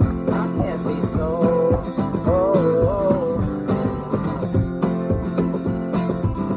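Live acoustic guitar strummed with a cajon beat, and a sung melody line over the first half.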